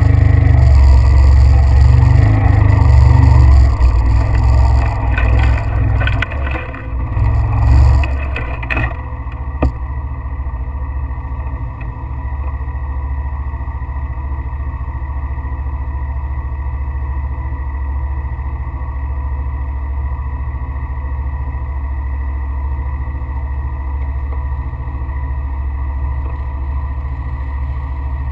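A vehicle's engine running while travelling. For about the first nine seconds it is louder and rougher, with rattling and noise on top, then it settles to a steadier, quieter hum.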